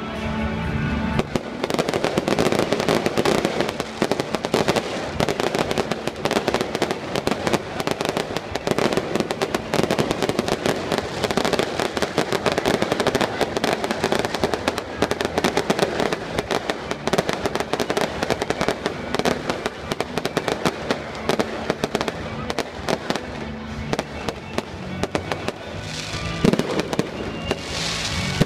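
Fireworks display: aerial shells bursting and crackling in quick succession, with one louder bang about two seconds before the end.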